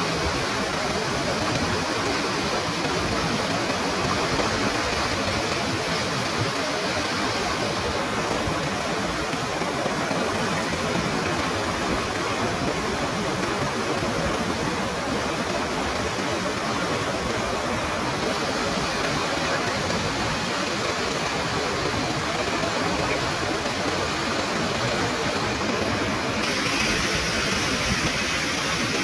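Rushing water of a monsoon-swollen waterfall and stream: a steady, dense rush that shifts slightly in tone a few times.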